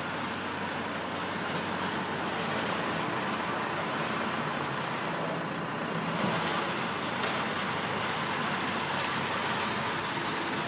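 A heavy vehicle's engine running steadily, heard as an even noise with a low hum and no distinct knocks.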